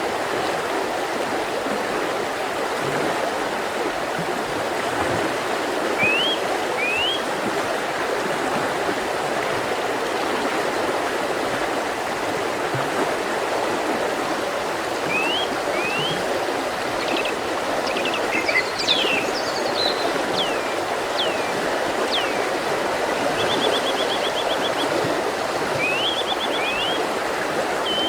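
Mountain river rushing steadily over rocks, with small birds singing over it: pairs of short rising notes several times, a burst of varied chirps and sweeping whistles in the middle, and a quick trill near the end.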